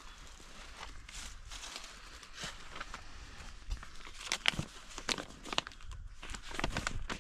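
Footsteps crunching on the ground, an irregular run of short crunches that gets louder and more frequent about halfway through.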